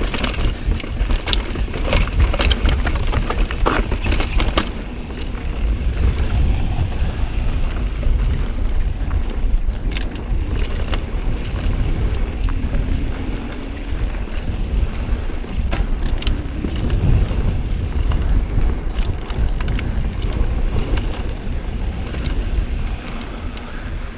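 Mountain bike running down rocky singletrack: a steady rumble of wind and tyres over dirt and rock, with sharp clicks and rattles from the bike hitting rocks, thickest in the first few seconds.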